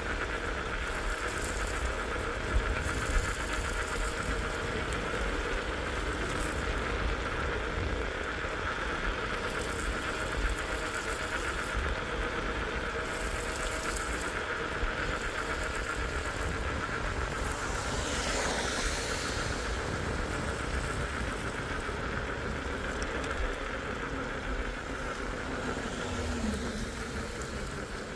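Small electric bike riding along: a steady motor whine over wind and road rumble. About two-thirds of the way in comes a brief whoosh that falls in pitch.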